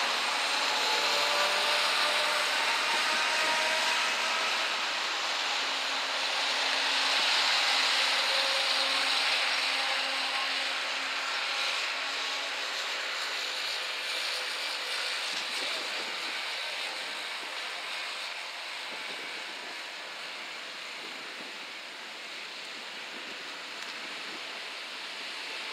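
Road traffic: a lorry driving away, its engine and tyre noise fading out over the first seconds, then a steady hiss that slowly dies down.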